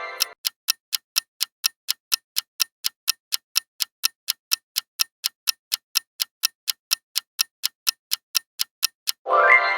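Steady ticking-clock sound effect, about four ticks a second, like a quiz countdown timer. A short ringing chime fades out just after the start, and another sounds near the end.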